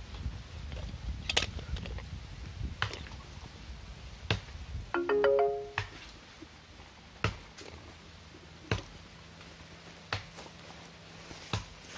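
A short electronic chime of four or five quickly rising notes about five seconds in, like a phone notification. Around it, sharp faint clicks come about every second and a half, with a low rumble in the first few seconds.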